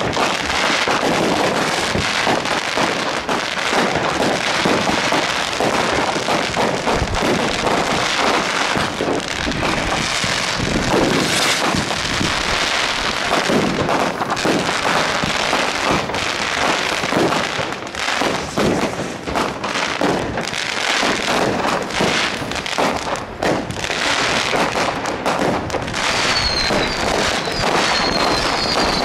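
Many aerial fireworks and firecrackers going off at once: a dense, unbroken run of bangs, pops and crackling. Near the end a few short high whistles are heard among the bangs.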